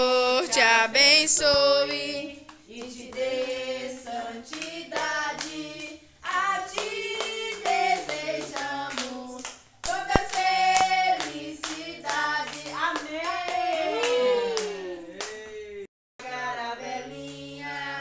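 Several voices singing a birthday song together, adults and children, with hands clapping along; the claps are sharpest in the first couple of seconds and again about halfway through. The singing breaks off briefly near the end.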